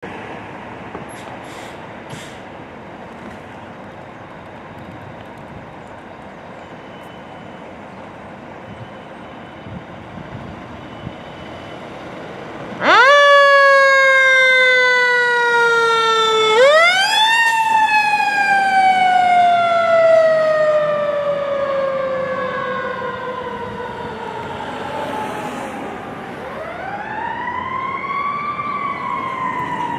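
Ferrara fire engine's engine running steadily as it rolls out, then its siren starts about halfway through. The siren winds up sharply and slides slowly down in pitch three times as the truck drives off.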